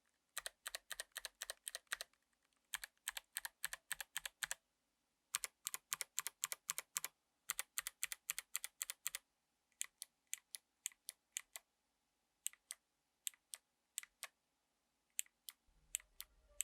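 Mechanical keyboard with Kailh BOX White clicky switches being typed on: fast runs of crisp clicks for the first nine seconds or so, then single key presses spaced out more slowly.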